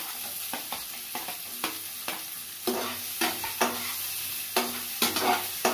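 Chopped onions sizzling in hot oil in a steel kadai, stirred with a metal spatula that scrapes and clinks against the pan about twice a second.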